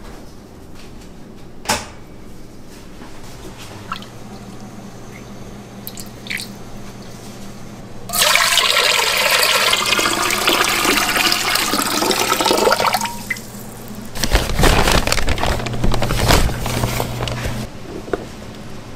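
Water running and pouring into a container for about five seconds. A second, heavier bout of splashing follows, all over a low steady machine hum.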